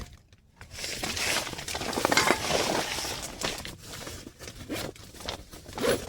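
Irregular rustling and crinkling with small crackles, as of something being handled, starting about a second in.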